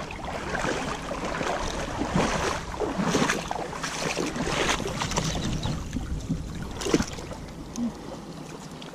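Legs wading through shallow water: irregular sloshing and splashing steps.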